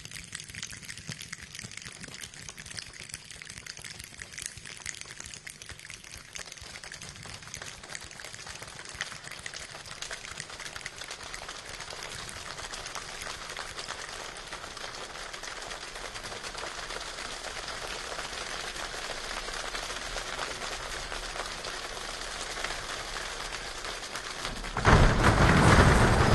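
Heavy rain pattering with floodwater running in the street, a steady crackling hiss that slowly grows louder. Near the end comes a much louder rush of splashing as a car drives through the deep floodwater.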